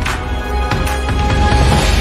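Theme music: a sudden hit at the start, then sustained music over a steady low bass.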